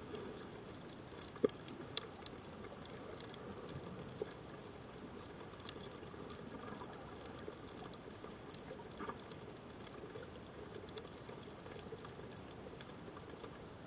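Underwater reef ambience picked up by a camera in its housing: a steady hiss with scattered sharp clicks and crackles, the loudest click about one and a half seconds in.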